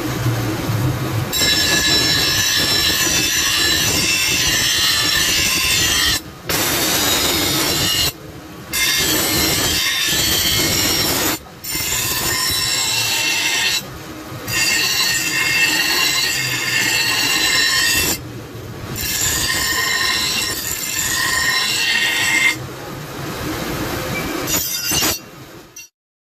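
A bench grinding wheel grinding a steel meat-cleaver blank to its final shape: a loud, harsh grinding screech with steady high whining tones. It breaks off briefly several times, and is quieter and then cuts off near the end.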